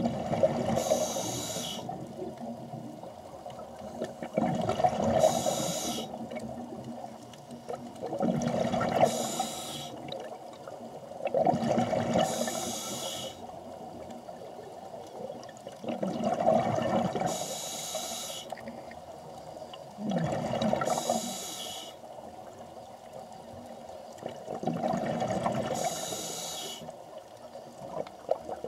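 Scuba diver breathing through a regulator underwater: a hiss and a burst of gurgling exhaled bubbles come in turn, about every four seconds.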